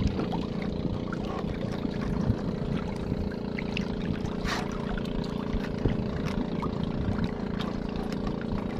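A small wooden fishing boat's engine idling steadily, with a few light knocks and splashes as a longline is hauled in by hand over the side.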